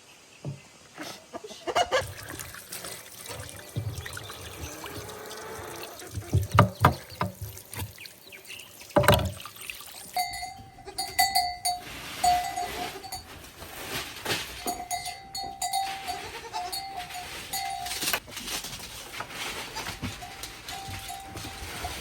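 Sheep with irregular knocks and thumps in the first half. From about ten seconds in, a steady high tone comes and goes.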